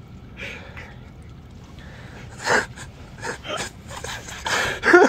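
A man gasping and breathing out sharply in short bursts after tasting a drink that he and his friends find disgusting. The bursts start about two and a half seconds in and come several times in quick succession toward the end.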